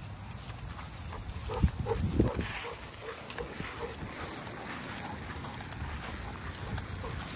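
A large bully-breed dog panting hard, a rhythmic huffing breath about three times a second, with two louder, heavier huffs about two seconds in. Wind rumbles on the microphone underneath.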